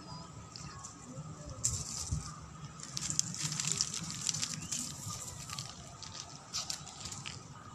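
Crackly rustling of leaves and plant stems in short bursts, starting about two seconds in and busiest in the middle, then thinning out, over a faint steady high tone.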